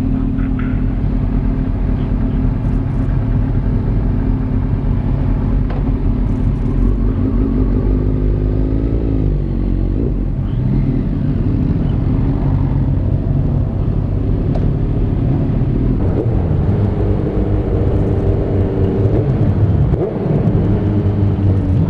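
Sport motorcycle engine running as the bike rolls away and accelerates onto the road, the revs rising and falling several times, with a brief dip near the end.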